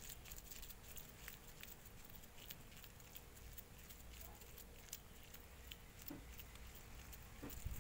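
Faint, scattered crackling of hands squeezing crumbly coconut laddu mixture against a steel bowl, over a low steady hum.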